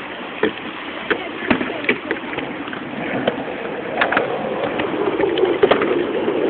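Aerosol spray-paint can hissing as it sprays, with knocks and rubbing of handling close to the microphone.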